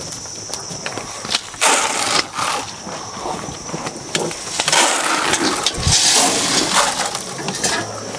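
Bursts of scraping, rattling and crunching as cattle crowd and shove at their feed buckets, over a steady high whine that stops near the end.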